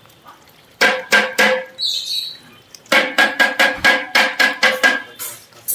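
Metal bowl knocked repeatedly against the rim of a large metal cooking pot to shake the last of its contents out, each strike ringing. There are a few knocks about a second in, then a quick run of about ten at roughly five a second.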